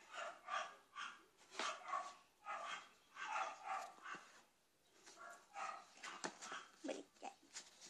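A small dog barking off-screen: a rapid string of short, high yaps in clusters with brief pauses between them.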